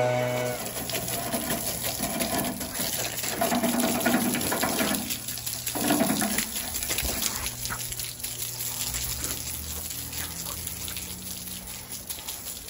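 Water gushing out of the end of a drain pipe and splashing onto concrete, a steady crackling splash that slowly fades. A motor's steady drone cuts off about half a second in.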